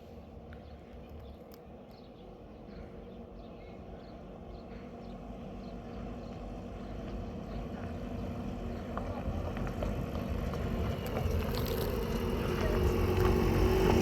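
A motor vehicle's engine approaching, its low rumble growing steadily louder, with a steady engine hum standing out in the second half.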